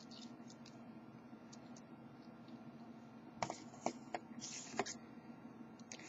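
Lock pick and tension wrench clicking and scraping faintly in the keyway of a cheap pin-tumbler padlock as the pins are picked, with a few sharper scratchy clicks between about three and a half and five seconds in.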